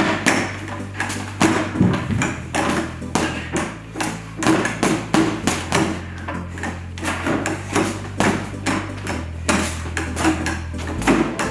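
Boxing gloves striking a stand-mounted punching ball in a quick, irregular series of thwacks, about two to three a second.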